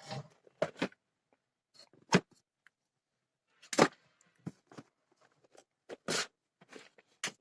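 A handful of separate sharp clicks and knocks, with quiet gaps between them, from hands handling parts and tools while reassembling a home theater amplifier.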